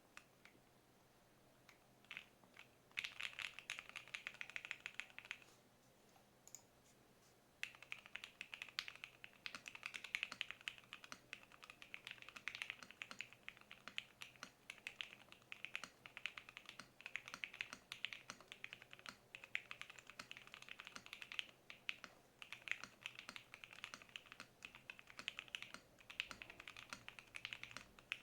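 Typing on a custom tenkeyless mechanical keyboard: lubed JWICK Black linear switches on an FR4 plate in an acrylic gasket-mount case, with PBT keycaps. A quick burst of keystrokes about three seconds in, a short pause, then steady continuous typing from about eight seconds in.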